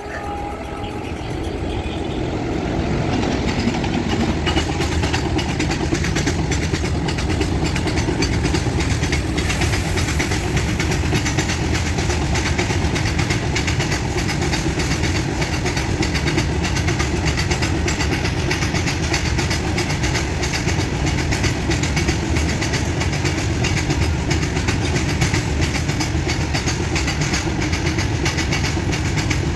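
Goods train passing at high speed, its wagon wheels making a noisy, dense clatter over the rail joints. The sound builds over the first few seconds, then holds steady.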